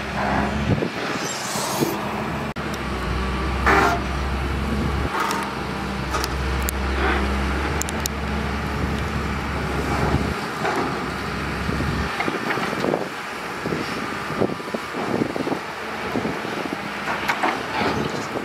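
Caterpillar 320CL long-reach excavator's diesel engine running under hydraulic load while digging. Its low rumble swells for several seconds in the middle, then eases, with irregular knocks throughout.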